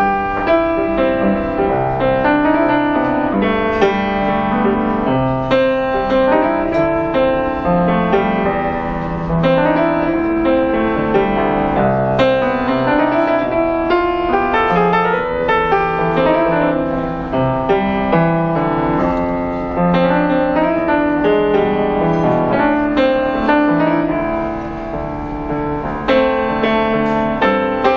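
Piano playing a flowing melody over chords, with notes struck in a steady rhythm.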